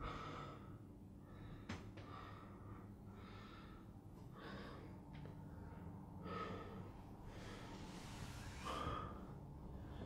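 A person breathing heavily, with audible uneven breaths and sniffs about every one to two seconds over a low steady hum. There is a single sharp click about two seconds in.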